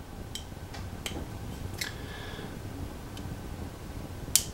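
Small, sharp clicks of metal tweezers on the tiny plastic flip-up sights of a 1/6 scale toy RPG: a few scattered ticks, then one louder click near the end.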